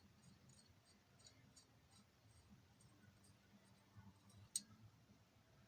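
Near silence with faint, light clicks a few times a second and one sharper click about four and a half seconds in.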